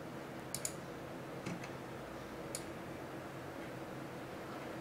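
Computer mouse clicking: a few faint, sharp clicks, a quick pair about half a second in, then single clicks spaced a second or so apart, over a faint steady background hum.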